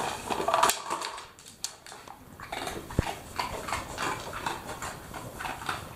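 Labrador retriever nosing and sniffing at a plastic cup on a wooden floor, with irregular clicks and taps. A single sharp knock comes about three seconds in, as the cup is pushed over.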